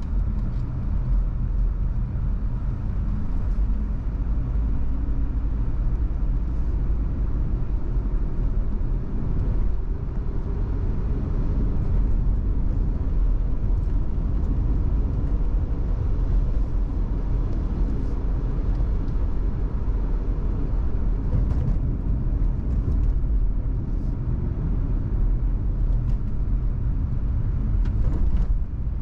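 Steady low rumble of a car driving on an unpaved dirt road, heard from inside the cabin: engine and tyre noise with a few faint ticks and rattles in the second half.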